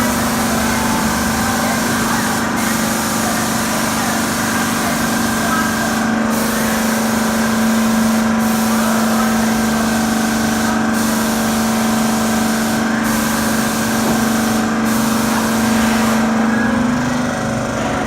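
Paint and wall-putty sprayer running, a steady motor hum under a loud spraying hiss. The hiss dips briefly every couple of seconds and fades near the end.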